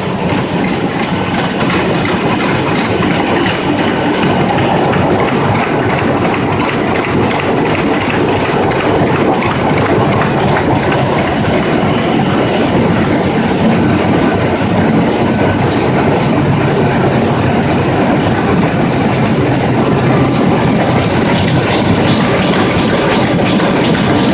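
Komori Lithrone L28 sheetfed offset printing press running: a loud, steady, dense mechanical clatter.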